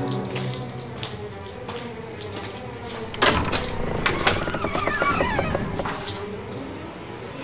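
A wooden gate being unlatched and swung open: a sharp clack about three seconds in, a few knocks, then short squeaks as it swings, with footsteps on wet concrete.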